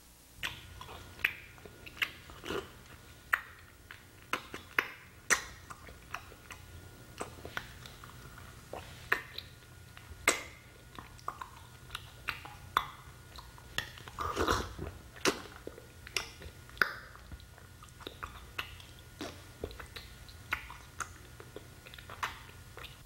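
Wet squelching and sharp clicking of gore sound effects from a rotting body, irregular at about one or two a second, with a denser cluster about two thirds of the way through, over a steady low hum.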